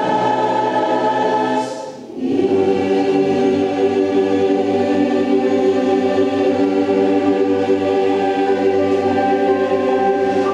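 Mixed choir of men and women singing sustained chords. After a brief break about two seconds in, the choir holds one long chord, the closing chord of the song.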